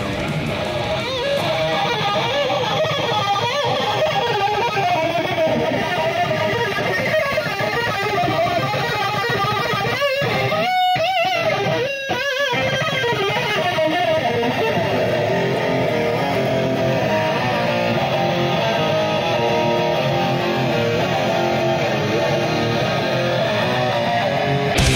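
ESP LTD Arrow Black Metal electric guitar played fast in shred lead lines, with held notes whose pitch wavers about ten to twelve seconds in.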